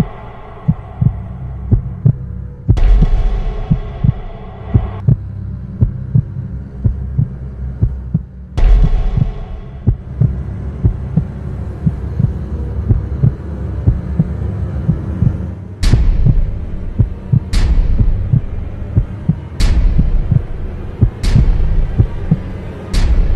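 Trailer sound design: a steady, heartbeat-like low pulse over a humming drone. Two swelling hits come early, then five sharp impact hits about two seconds apart in the second half.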